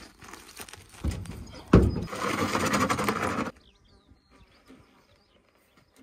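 A removed ute wheel and tyre being handled on gravel: a thud, then a heavier thump, then about a second and a half of crunchy scraping that cuts off suddenly, leaving only faint scattered knocks.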